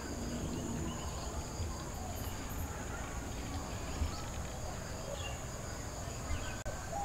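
Crickets chirping in a steady high-pitched drone, over a faint low rumble of outdoor background noise.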